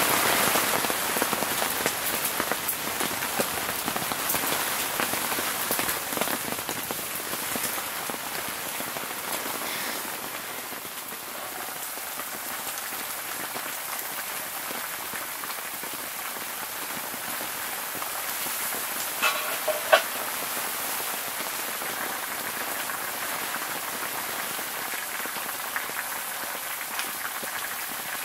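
Heavy rain pattering steadily, loudest in the first few seconds and then settling into a softer, even hiss. About two-thirds of the way through there are two sharp clicks, a fraction of a second apart.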